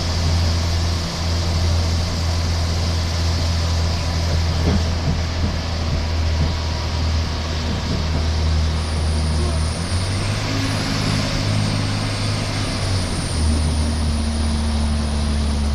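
Shuttle bus engine and drivetrain running, heard from inside the bus: a steady low drone whose pitch shifts about ten seconds in and again about thirteen seconds in, with a faint high whine in the second half.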